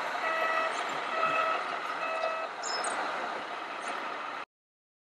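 Reversing-style warning beeper of a radio-controlled model tracked excavator sounding three times as the machine moves on its tracks, over steady background noise. The sound cuts off abruptly about four and a half seconds in.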